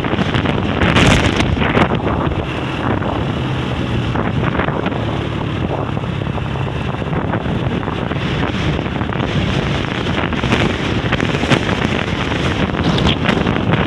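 Strong sea wind blowing straight into the microphone, a loud continuous rumbling buffet that swells and eases with the gusts.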